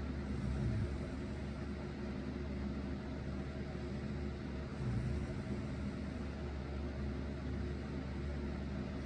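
Electric fan running steadily while a person snores over it; low snores swell about every four to five seconds, once near the start and again about five seconds in.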